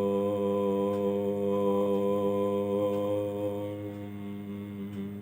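One low voice chanting a long, steady Om on a single held pitch, softening over the last second or two as the note draws to its close.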